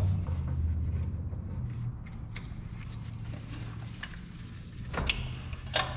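Scattered light clicks and taps of hand tools and metal parts being handled at a truck's front brake caliper and hub, over a low steady hum. A sharper click comes about five seconds in and a louder one near the end.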